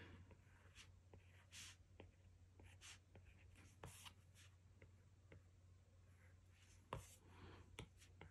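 Faint, irregular ticks and taps of an Apple Pencil's plastic tip on an iPad Pro's glass screen as scales are drawn. The loudest tick comes about seven seconds in.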